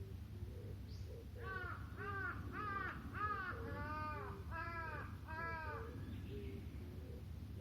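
A crow cawing, a quick series of about seven harsh caws over a few seconds.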